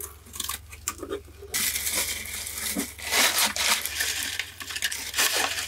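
Hands opening a cardboard shipping box and rustling the packing inside, with small clicks at first and a denser run of crackling and rustling from about a second and a half in.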